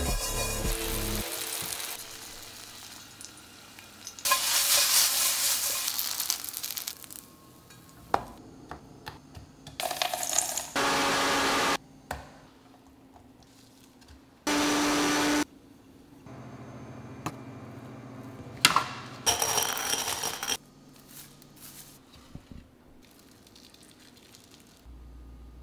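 Kitchen sounds in quick succession: nuts and seeds sizzling and rattling in a frying pan, a countertop blender running in two short bursts, and scattered clinks of dishes and utensils.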